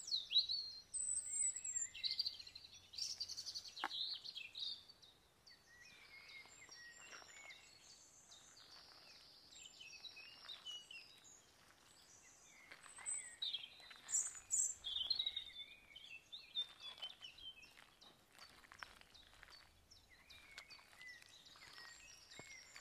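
Small birds chirping and calling again and again, over soft wet squelching of hands mixing thick pakora batter in a pot.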